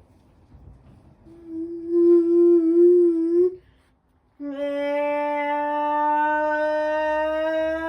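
Dominion washing machine running with a steady pitched whine in two stretches, stopping for about a second midway; the second stretch rises slowly in pitch. The drain pump problem seems to have cleared.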